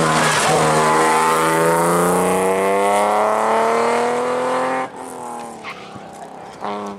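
Rally car engine under hard acceleration, its note rising steadily in pitch for about five seconds. Then it drops away suddenly, leaving a quieter, lower engine sound.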